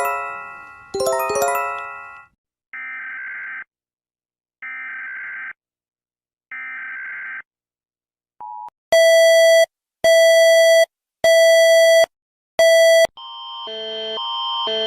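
Emergency alert system sequence. Twice, a descending electronic chime. Then three short, evenly spaced warbling data bursts like an EAS header, four loud buzzing beeps, and near the end a harsh multi-tone alert signal that swells up.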